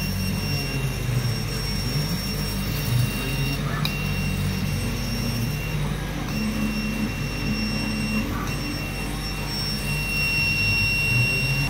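CO2 laser cutting machine at work cutting wood veneer: a steady low hum of the machine and its fume-extraction blower, with a thin high whine that breaks off briefly a few times and resumes.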